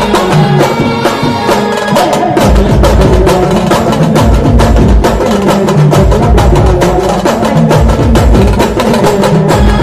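Maharashtrian wedding band party (banjo party) playing a Rajasthani folk tune: a held melody over dense, rapid drum and percussion strikes and heavy bass. The bass drops out about a second in and returns about two and a half seconds in.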